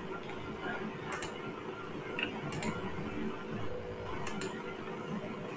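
Computer mouse clicking three times, each a quick double click (press and release), over a steady low background hum.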